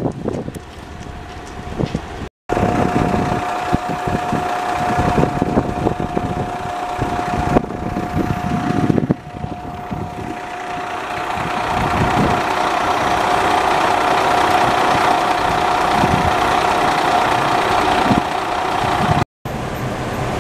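Diesel railcar running along the track, heard from inside the carriage: a steady engine drone with a constant whine that grows louder about halfway through.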